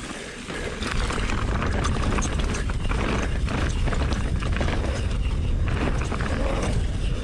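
A mountain bike being ridden fast down a rough dirt trail: a steady wind rumble on the microphone with the irregular clatter and rattle of the bike and tyres over the ground. It gets louder about a second in as speed picks up.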